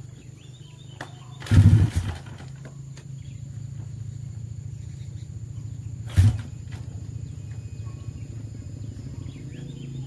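Honda Supra motorcycle with a 200cc sleep engine idling through a new Thai-style exhaust, blipped twice: a short burst of revs about a second and a half in and a briefer, sharper one about six seconds in.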